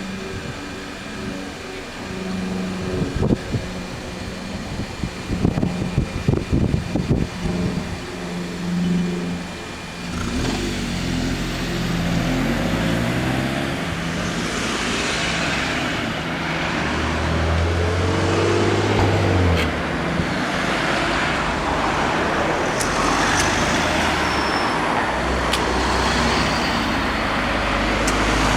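Road traffic at a level crossing: motor vehicles passing, their engines and tyre noise. About ten seconds in it becomes a steadier, louder rush of passing cars.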